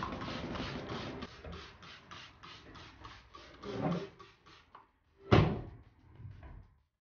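Plastic trigger spray bottle of Dexal cleaner squirting over and over, about three short hissing squirts a second, onto a drip tray. The squirting stops and there is one loud knock about five seconds in.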